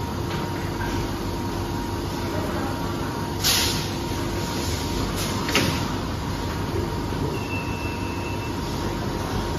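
PCB exposure machine and factory equipment running with a steady hum, broken by a short burst of hiss about three and a half seconds in and a sharper, shorter hiss with a click about two seconds later. A brief high beep sounds near the end.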